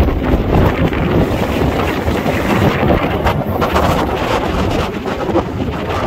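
Gale-force wind blowing hard across the microphone, over large lake waves breaking on the shore; a loud, continuous, gusting rush of noise.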